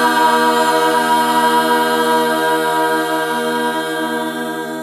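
A cappella choir holding the final chord of a hymn, several voices sustained in harmony on one steady chord. The chord fades slightly and cuts off at the very end.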